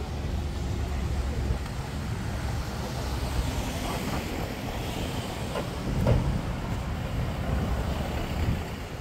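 Street traffic: a motor vehicle's engine running close by, loudest about six seconds in.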